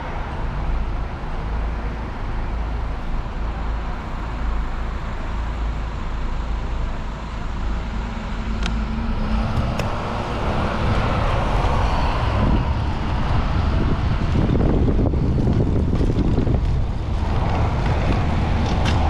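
City street traffic noise while the bicycle waits at a junction, then wind buffeting the microphone as the bicycle rides off, the noise growing louder about halfway through.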